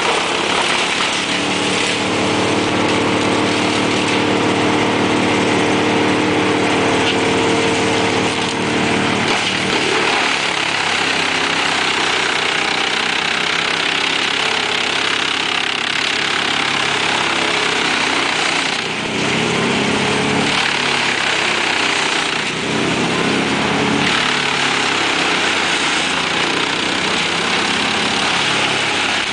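Truck-mounted wood chipper running under load as a crane grapple feeds it branches and brush: a loud, continuous engine and chipping noise. A steady engine tone stands out for the first nine seconds or so, then gives way to a rougher, uneven sound.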